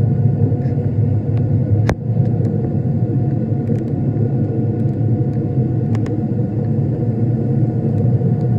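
Steady low rumble of a Boeing 777 airliner cabin, the engines and airflow heard from inside. A sharp click comes about two seconds in and a smaller one about six seconds in.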